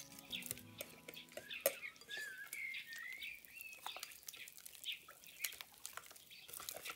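Sharp clicks and short squeaks of a utensil working against a mixing bowl, as in mashing or stirring, while music fades out in the first second or so.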